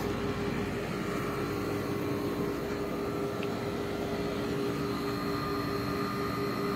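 Two window air conditioners running together outside, one of them a restored 1966 Admiral Royal 106. Their fans and compressors make a steady whir with an even hum of several tones.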